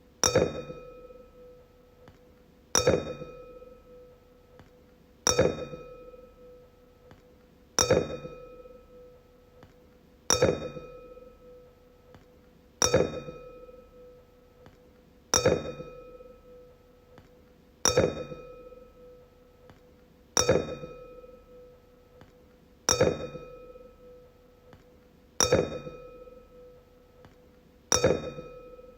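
Wine glass struck over and over, about every two and a half seconds, each strike ringing a clear tone that fades away before the next.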